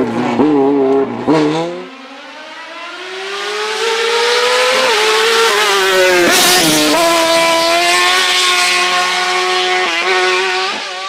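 Race car engines revving hard through a slalom course. Near the start an engine blips up and down through the gears, then another car approaches with rising revs, passes loudest about six seconds in, and holds high revs as it pulls away and fades.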